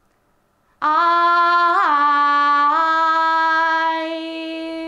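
A woman singing unaccompanied in long, drawn-out notes. The pitch wavers and dips about a second after she starts, then steps back up to one long held note that softens near the end.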